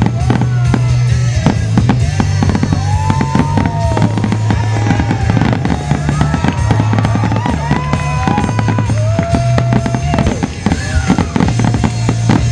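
Dense barrage of aerial fireworks shells bursting, many bangs overlapping in quick succession, with music playing underneath and several gliding whistling tones.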